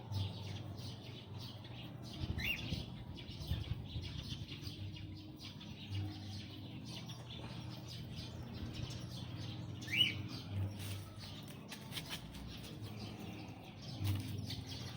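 Birds chirping, with three short rising chirps standing out about two seconds in, near ten seconds, and at the very end.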